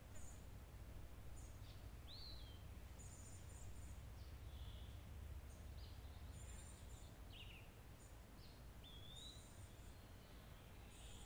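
Faint birdsong: scattered short high chirps and a few gliding whistled calls, over a steady low rumble.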